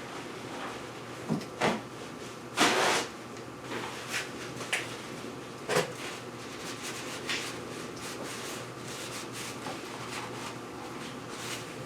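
Handling noises from grabbing a paper towel and wiping spilled bar oil off a chainsaw: a few scattered knocks and clicks, with one louder, longer rustle about two and a half seconds in.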